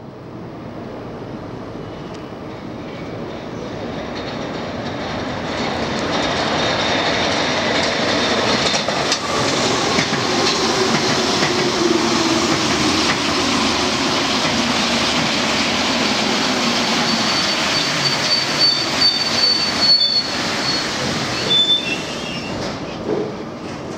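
Rubber-tyred Paris Métro MP 73 train arriving at a platform, growing louder over the first few seconds as it approaches. A low hum falls in pitch as it slows, then a high squeal and a few clicks come near the end as it draws to a halt.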